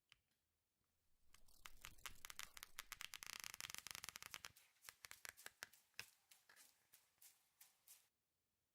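Paper pages of a flip book riffling past the thumb. About a second in comes a fast run of crisp page flicks, which slows to separate flicks and then stops shortly before the end.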